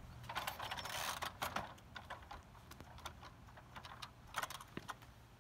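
Sharp mechanical clicks and a short clatter from a 1951 Vincent Rapide being kicked over without its engine firing, because the gearbox is still in gear. The clatter comes about half a second in, with single clicks after it.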